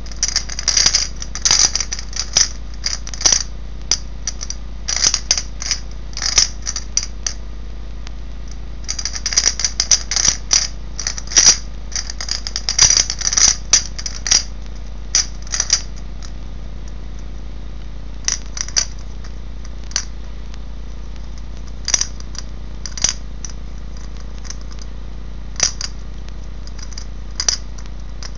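White DoTS gravity puzzle, a clear plastic sphere with a cube inside, clicking and rattling as it is tilted and turned in the hand, its loose pieces rolling and dropping against the plastic. The clicks come in dense irregular runs for the first few seconds and again from about nine to sixteen seconds in, then only now and then, over a steady low hum.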